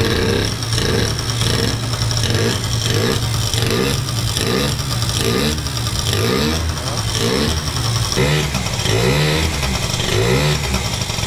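The two-stroke engine of an MBK Booster Next Gen scooter running while the throttle is blipped again and again, about twice a second, the revs rising and falling, with bigger blips in the last few seconds. It is a test run on a freshly fitted 88 main jet.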